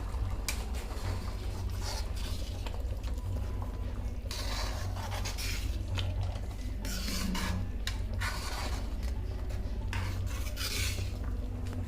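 A spoon stirring and scraping thick dal around a cooking pot, mixing in freshly added spices, in a run of uneven strokes over a low steady hum.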